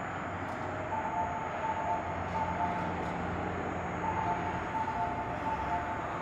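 Osaka Monorail train approaching on its elevated guideway, running with a steady rumble. Over it, a repeating electronic chime of two alternating notes sounds in phrases, starting about a second in and again about four seconds in.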